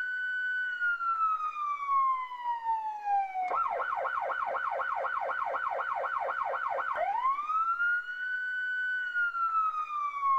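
Police siren: a long wail that holds and then slowly falls, switches about three and a half seconds in to a fast yelp of about four sweeps a second, then changes back to a wail that rises, holds and falls again.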